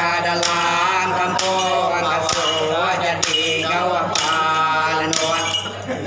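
Iban lemambang (ritual bards) chanting in unison with men's voices, with staffs striking the floor in a regular beat about once a second, each stroke clinking.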